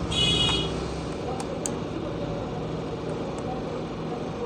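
Steady background hum, with a brief high-pitched tone lasting about half a second near the start and two light clicks soon after.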